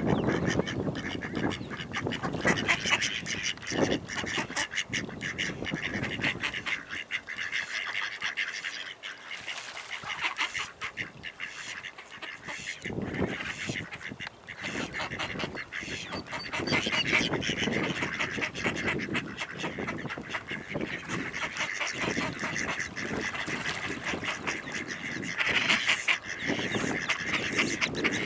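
Mallard ducks quacking in quick, repeated runs, with a quieter stretch in the middle.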